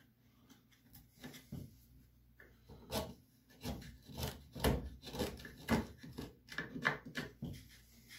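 A hand carving tool paring and scraping wood out of a routed cavity in a wooden bass guitar body, shearing the wood off at an angle in short, irregular strokes that come stronger and closer together from about three seconds in.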